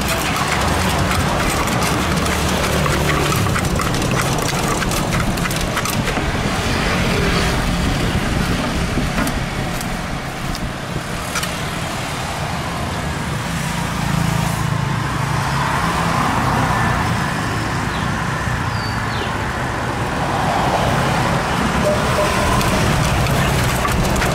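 Steady road traffic rumble, with a wooden pestle knocking in a clay mortar and a spoon scraping as green papaya salad is pounded and tossed.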